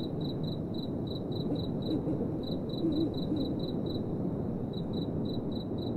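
A cricket chirping at night: a steady run of short, high chirps, about four or five a second, pausing briefly twice, over a low steady rumble.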